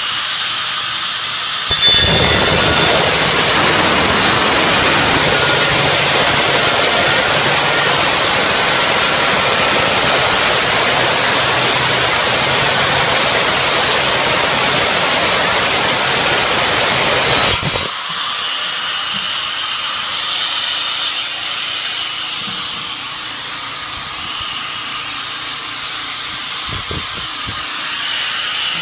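Angle grinder with a diamond saw blade running, then cutting through a glazed tile with a loud, harsh grinding from about two seconds in. The cut ends about eighteen seconds in and the grinder runs on with a quieter, higher whine.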